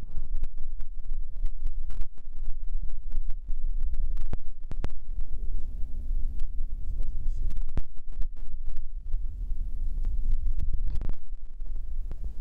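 A claw machine in play: a steady low motor hum comes in twice for a second or two as the claw gantry moves, among many short clicks and knocks. A heavy low rumble from handling the recording phone runs underneath.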